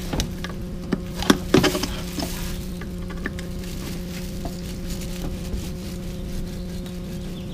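Hand work in a car engine bay: a cluster of sharp clicks and knocks between about one and two seconds in, over a steady low hum and a faint crackly hiss.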